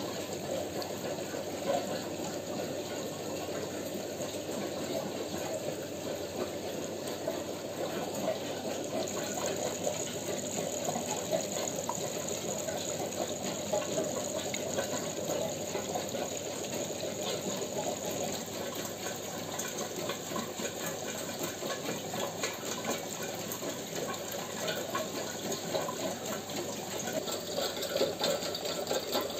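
Aquarium aeration and filters bubbling: a steady, fine, watery bubbling and trickling with small crackles throughout.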